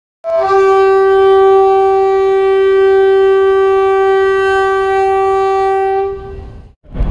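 One long, steady horn-like tone with rich overtones, starting with a brief higher note and fading out near the end.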